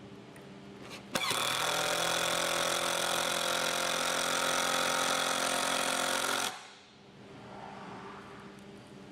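Power drill driving a screw into a cedar log joint. It runs at a steady pitch for about five seconds and then stops.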